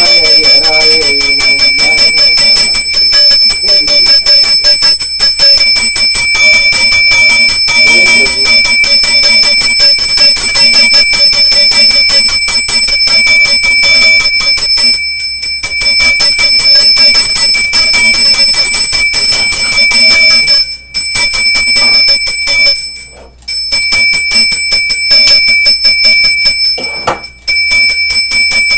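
Small brass puja hand bell rung continuously in worship: a fast, even jangle with a steady high ringing tone. It breaks off briefly a few times in the second half.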